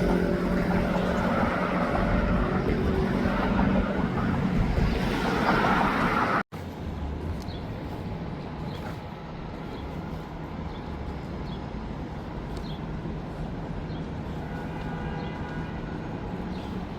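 Loud, steady rumble of a moving vehicle, train-like, that cuts off abruptly about six seconds in. A quieter steady background hum follows, with a few faint high chirps.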